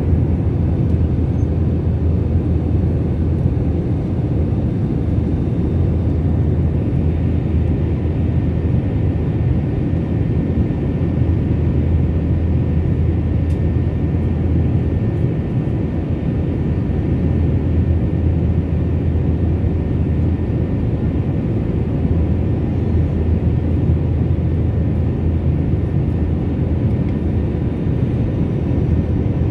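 Steady in-flight cabin noise of an airplane: a constant low rumble of engines and airflow, with faint steady hums above it and no change.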